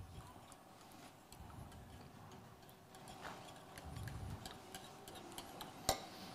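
Faint scattered clicks and light taps, with one sharper knock about six seconds in, over a low room murmur.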